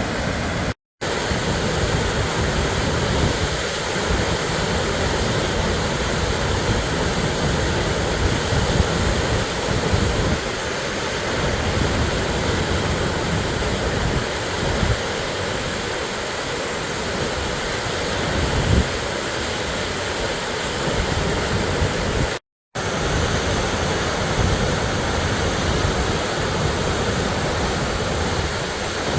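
Waterfall pouring: a loud, steady rush of falling water with an uneven low rumble underneath, broken by two brief dropouts.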